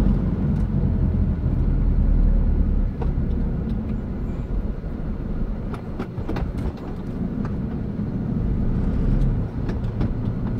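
Car engine and road noise heard from inside the cabin while driving: a steady low rumble, with a few faint knocks.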